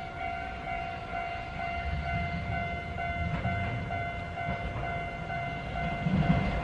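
A level-crossing warning bell ringing in an even repeating pattern, about two beats a second. Under it, a Hankai Tramway Mo501-type tram (car 505) approaches on curved track, its wheel and motor rumble growing louder from about two seconds in.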